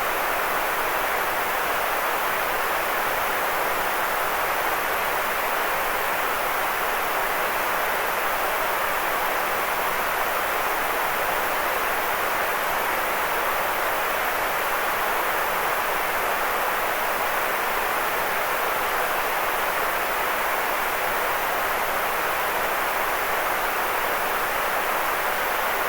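Steady synthetic noise, centred in the middle of the range, with no change or events.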